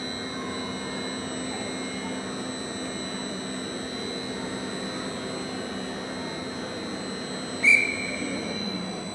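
Gantry crane's hoist humming steadily as it lowers a suspended train car body. About three-quarters of the way through comes one sharp metallic clank that rings briefly.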